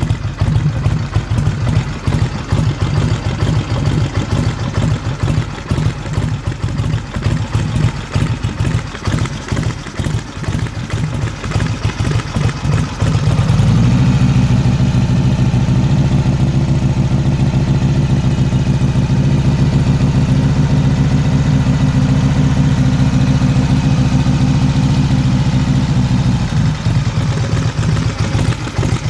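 A 2001 Harley-Davidson V-twin idles with an uneven, pulsing beat, and its cams are audible in the idle. About halfway in the revs are raised and held steady and louder for roughly thirteen seconds, then drop back to idle near the end.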